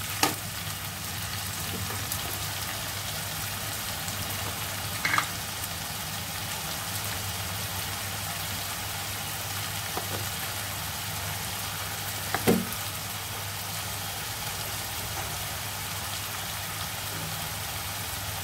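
Sliced onions and spice paste frying in hot oil in a nonstick kadai, a steady sizzle. A few short knocks stand out, near the start, about five seconds in and, loudest, about twelve seconds in.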